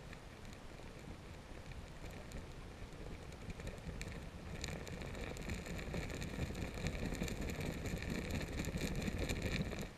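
Underwater sound of a gravel-bed river: a steady low rush of current, growing louder about four seconds in, joined by dense clicking and crackling of gravel as fish stir the stream bed and raise silt. It cuts off suddenly at the end.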